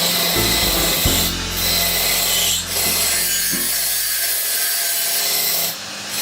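Sandpaper rubbing across a wooden surface: a steady scratchy hiss with brief breaks between strokes, the last just before the end.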